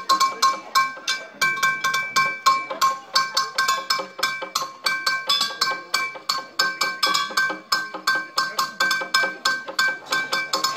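Speed bucket drumming: drumsticks striking plastic buckets and other percussion pieces in a fast, even stream of hits, about five a second, with a ringing note carrying over the strikes.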